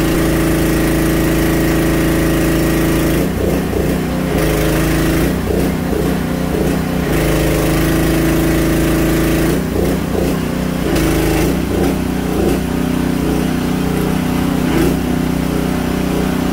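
An engine running steadily at idle, with a wavering higher sound coming and going over it from about three seconds in.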